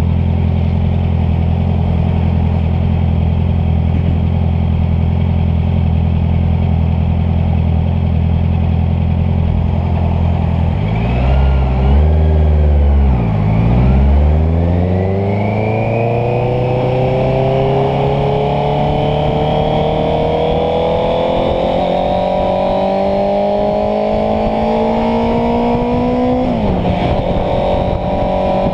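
Honda CBR650F motorcycle's inline-four engine running at a steady note, then dipping and rising in pitch about halfway through. It then climbs slowly for about ten seconds as the bike accelerates, drops suddenly near the end at a gear change, and starts climbing again.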